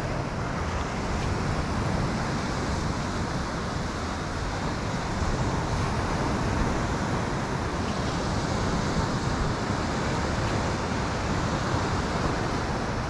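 Steady rush of wind noise on the microphone mixed with surf washing onto the beach, even throughout with no distinct events.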